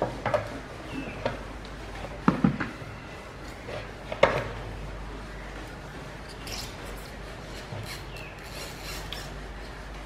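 A plastic alarm siren housing handled against a door frame: a few sharp knocks and taps in the first half, then light rubbing and rustling as a small part is fitted beside it.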